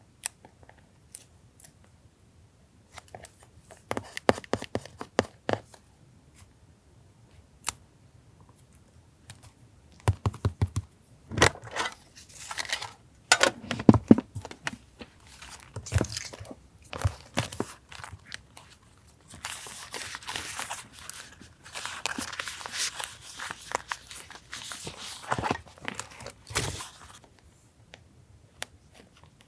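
Paper being handled for a journal collage: scattered taps and light rustles, then longer stretches of paper tearing and rustling, the longest in the second half.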